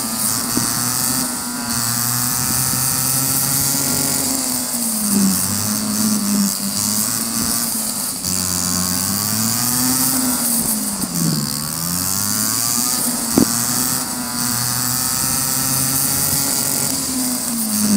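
Go-kart engine running hard, its pitch rising and falling with the throttle as the kart brakes and accelerates through the turns, with wind hiss on the onboard microphone. A single sharp click about three-quarters through.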